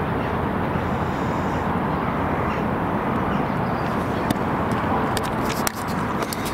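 Steady low rush of outdoor background noise. About four seconds in, a series of light handling clicks starts as the camera is moved.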